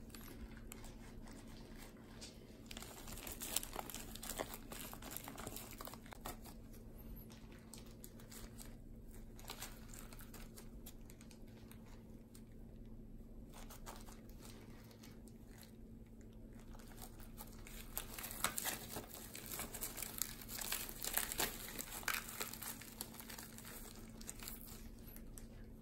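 Thin disposable plastic food-prep gloves and dry nori crinkling and rustling as a sushi hand roll is filled and rolled, with scattered faint crackles that grow busier in a stretch near the end, over a faint steady hum.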